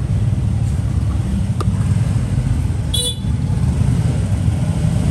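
Steady low rumble of road traffic, with one short, high-pitched toot about three seconds in.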